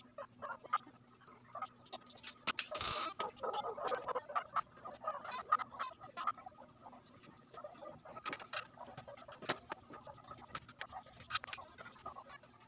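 Small scattered clicks and taps of a soldering iron and a circuit board being handled while the board's joints are resoldered, with a short stretch of denser crackly noise about three seconds in.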